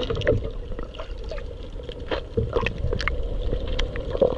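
Underwater sound through a submerged action camera: a muffled low rumble with a steady hum and many scattered clicks and pops.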